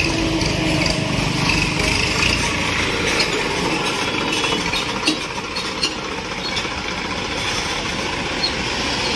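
Massey Ferguson tractor's diesel engine running steadily as the tractor is driven up close during a brake test and pulls up, with a few short sharp knocks around the middle.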